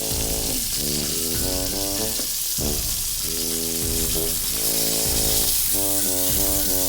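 Pork steak sizzling and frying over a wood fire: a steady high hiss, with background music of chords and a bass line underneath.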